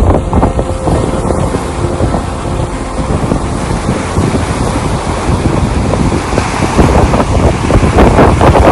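Heavy wind buffeting the microphone over rushing water, as from a boat moving across a lake; it grows louder near the end.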